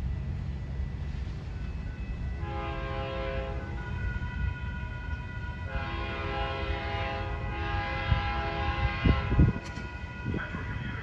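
A Metra commuter train's multi-chime air horn sounding a chord in several separate blasts, each about one to one and a half seconds long, over the low rumble of the train. A few heavy low thuds come near the end.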